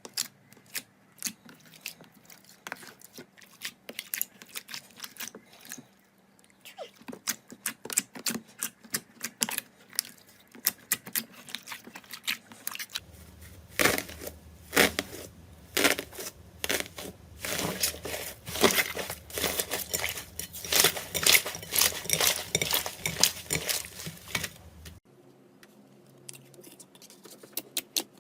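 Slime being squeezed, stretched and poked: irregular sticky crackling and popping clicks. They grow denser and louder about halfway through and thin out again near the end.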